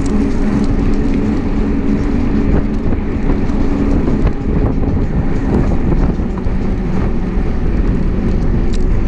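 Wind buffeting the microphone of a camera riding on a moving bicycle, a loud steady low rumble with no break.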